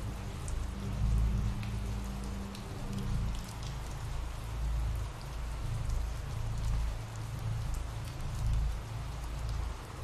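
Steady rain, an even hiss of falling rain with scattered drop ticks over a low rumble that swells and eases.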